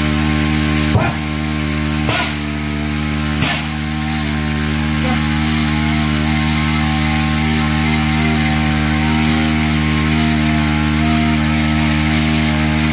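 Small engine of a motorised 30-litre knapsack sprayer running steadily at constant speed while spraying. Three sharp knocks come in the first few seconds, each followed by a brief dip in the engine's level.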